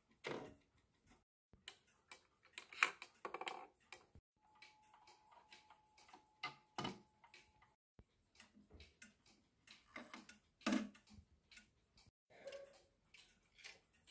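Wall clocks ticking and clicking, one after another, with extra clicks from the movements as the minute hands are pushed toward the hour. A faint steady tone sounds for a few seconds in the middle.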